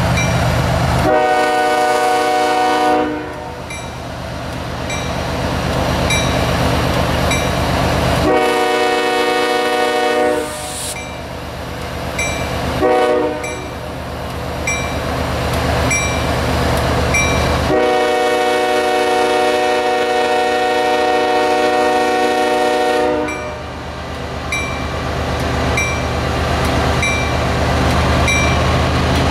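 Diesel freight locomotive's multi-chime air horn sounding the grade-crossing signal: two long blasts, one short, then one long held blast. Under it runs the deep rumble of the diesel engines working to start a heavy train moving in snow. A crossing bell dings about once a second.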